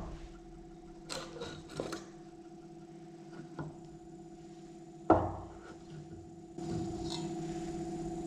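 Steel pieces of a cut-open oil filter handled on a plywood table: a few light metal clicks, then one solid knock about five seconds in as the steel canister is set down. A steady hum runs underneath and grows louder about six and a half seconds in.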